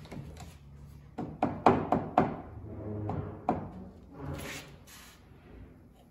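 A mallet tapping a wooden hinge-routing jig into position on door jambs: several sharp knocks, most of them between about one and three and a half seconds in.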